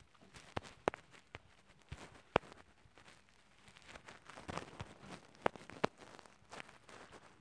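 Irregular sharp taps of a fingertip on a phone touchscreen while drawing, about half a dozen, with a stretch of soft rubbing on the screen around the middle.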